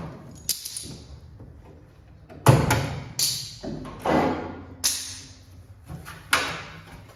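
A series of about seven sharp metal bangs and clanks at uneven intervals, each dying away in a short ringing tail. The loudest comes about two and a half seconds in.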